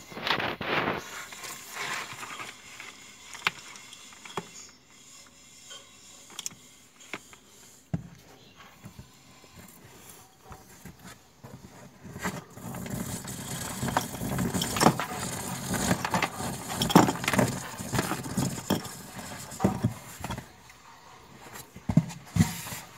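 Cardboard rustling and scraping with irregular clicks and knocks as an electric wire is fed through a hole in a cardboard box and a plastic bulb holder is pushed into the hole. The handling gets busier about halfway through.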